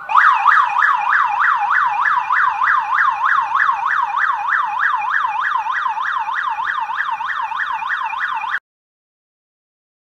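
Burglar alarm siren wailing in a fast, even warble of about three pitch sweeps a second, set off by the wireless outdoor sensor. It cuts off abruptly near the end.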